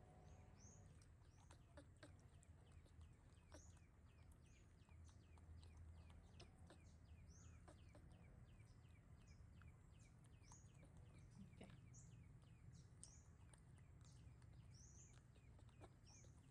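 Near silence with faint, high bird chirps repeating throughout, among light clicks, over a low steady hum.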